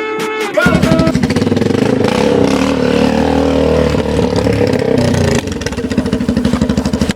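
Motorcycle engine running, its exhaust pulses fast and even. It comes in sharply about half a second in; its pitch rises a little and then falls back.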